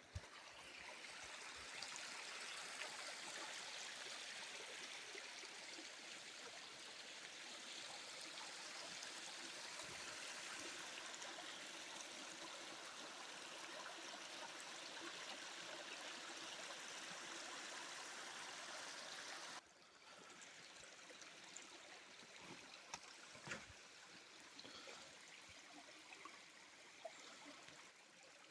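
Mountain stream running over stones, a steady rush of water. About twenty seconds in it drops suddenly to a quieter level, with a few small knocks after.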